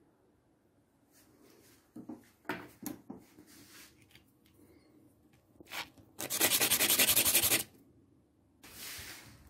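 A hand tool rasping into an old brick to cut it down for miniature bricks: a few short scraping strokes, then a loud unbroken rasp of about a second and a half, and one more shorter stroke near the end.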